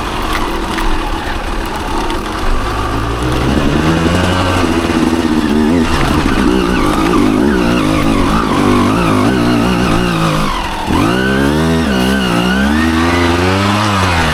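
Dirt bike engine revving, its pitch rising and falling with the throttle. About eleven seconds in it dips briefly, then picks up again in quick wavering rises and falls of the revs.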